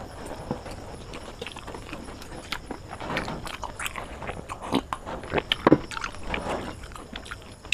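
Close-up eating sounds from a person chewing a mouthful of chicken biryani: irregular wet mouth clicks and smacks, louder for a few in the second half.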